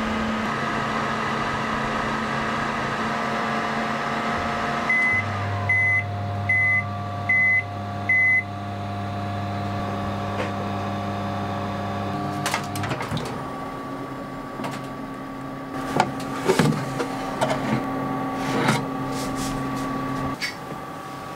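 Panasonic Bistro steam-oven microwave running with a steady fan hum, then five short high beeps signalling that its steaming program has finished. About 13 s in the hum changes, and a few clicks and knocks follow as the oven door is opened.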